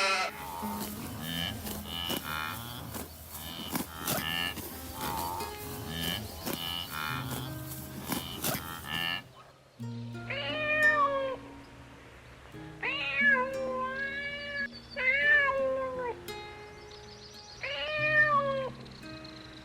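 A cat meowing about five times, each meow about a second long, in the second half, over steady background music. The first half holds a busier mix of clicks and short high calls from another animal clip.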